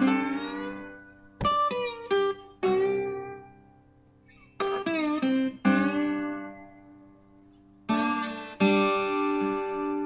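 Guitar music: plucked and strummed chords, each struck sharply and ringing out, a few quick ones in the first seconds and a longer held chord near the end.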